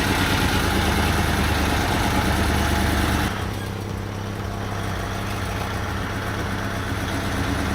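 Mitsubishi Fuso truck's V8 diesel engine running steadily under load, louder for about the first three seconds and then easing off somewhat.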